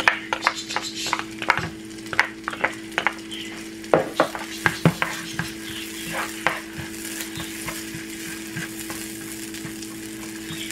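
Minced garlic sizzling in hot butter and vegetable oil in a nonstick frying pan, with a spatula scraping and clicking against the pan as it is stirred. The clicks come thickest in the first half, over a steady low hum.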